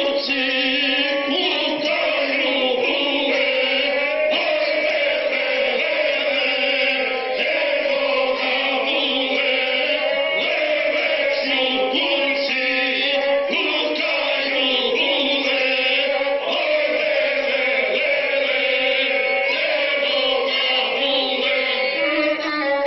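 A group of singers performing a Serbian traditional izvorna folk song together, in long held, bending lines, heard through a television's speaker.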